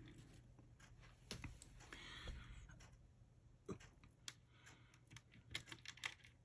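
Faint, scattered clicks and taps of small plastic and metal parts being handled as a coil spring and shaft are fitted to a plastic RC buggy chassis, with a short rustle about two seconds in and more frequent clicks in the second half.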